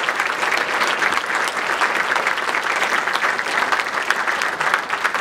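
A roomful of guests applauding steadily, many hands clapping at once.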